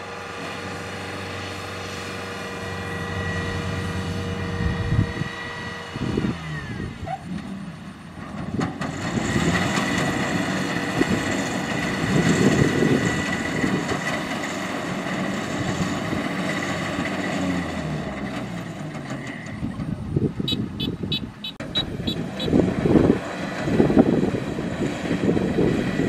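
Rice combine harvester's engine running steadily, its pitch shifting between about six and nine seconds in. About twenty seconds in comes a quick run of short high-pitched ticks.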